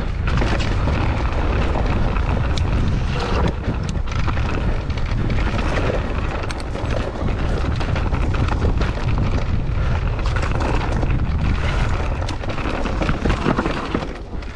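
Mountain bike riding down a rough trail: wind buffeting the microphone over a steady low rumble, with many small clicks and rattles from the tyres and bike over the ground.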